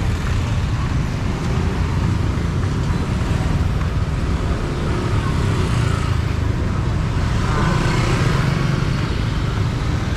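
Steady rumble of street traffic, cars and motorbikes running past close by.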